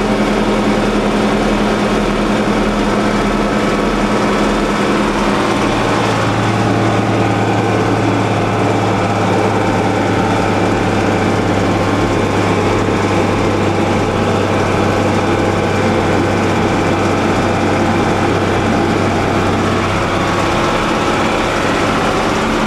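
John Deere 4020 tractor engine running steadily while pulling wagons, heard from the cab. About six seconds in, the pitch of its drone drops and holds lower.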